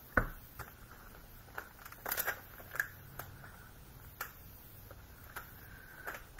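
Scattered light taps and clicks of rubber-stamping supplies being handled on a work table: clear acrylic stamp blocks and card set down and moved, with one sharper knock just after the start.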